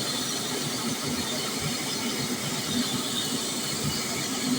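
Steady mechanical running noise with a hiss, as of heavy machinery running without a change in load.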